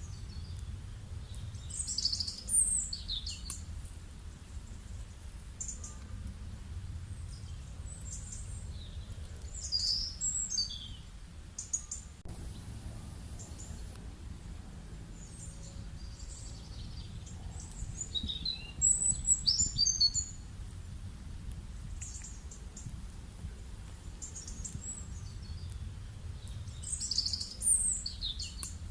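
Songbird singing in short, high-pitched chirping phrases that come back roughly every eight seconds, over a steady low rumble.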